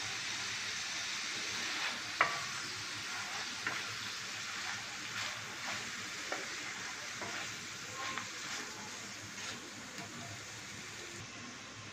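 Mutton liver pieces sizzling in oil on a tawa, with scattered pops and clicks as a wooden spatula stirs them. The sizzle grows a little quieter toward the end.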